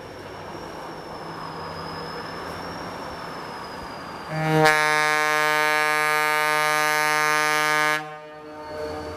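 Diesel locomotive of a snow plow train rumbling as it approaches, then about four seconds in sounding its air horn in one long, loud blast of three to four seconds that cuts off sharply: a warning for the grade crossing.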